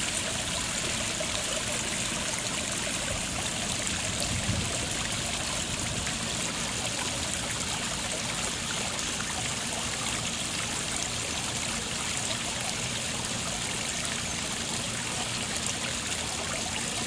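Garden pond waterfall running steadily, water splashing and trickling over the rocks into the pond.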